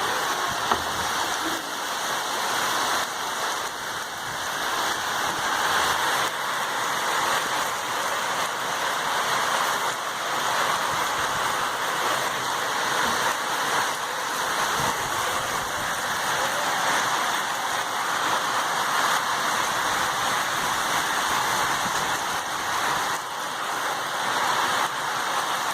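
Heavy rain falling in a steady downpour, an even hiss that swells and eases slightly without stopping.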